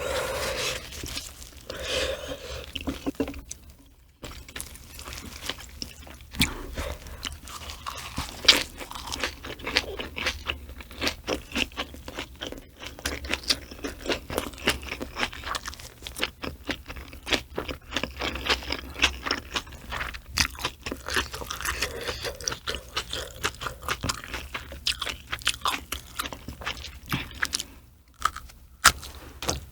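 A person chewing close to the microphone, eating raw mackerel with rice and green-onion kimchi: many sharp crunches and wet mouth clicks, several a second, over a faint steady low hum.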